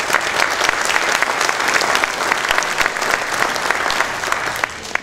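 An audience applauding: a dense, steady patter of many hands clapping that stops near the end.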